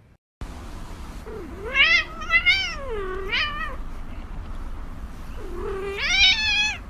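Domestic cat giving long, wavering meows: a run of calls from about a second and a half in to the middle, then one more drawn-out meow near the end.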